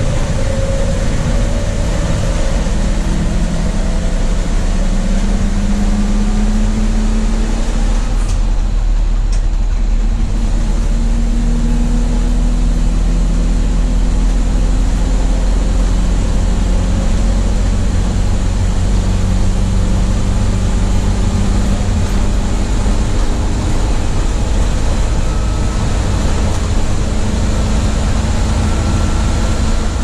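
Inside the cab of a 1982 Chevrolet Blue Bird school bus cruising on the highway: the engine runs steadily under load over heavy road and wind noise. The engine note climbs slowly a few times.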